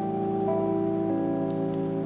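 Calm background music of slow, sustained chords, with new notes coming in about every half second, over a steady rain-like hiss.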